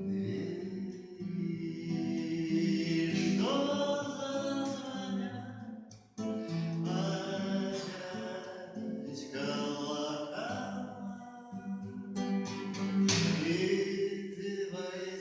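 A song: a voice singing long held notes over strummed acoustic guitar chords.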